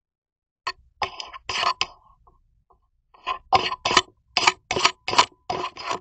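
A cat's face and fur brushing and rubbing right against a CCTV camera's microphone: short scratchy rustles that start in a brief cluster, pause, then settle into a steady run of about two or three a second.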